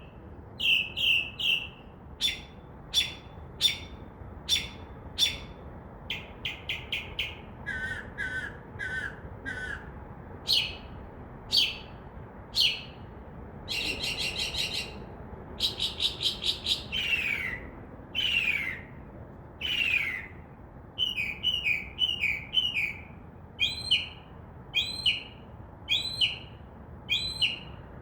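Northern mockingbird, a male singing at night to attract a mate: a long run of varied phrases, each repeated several times before switching to the next, including a harsh buzzy phrase about halfway and a series of downward-sliding notes after it.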